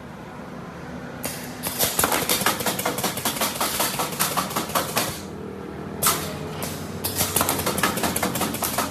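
Semi-automatic wire mesh welding machine running: a steady hum under rapid, regular clattering strokes, about six a second, which stop for about a second just after five seconds in and then resume.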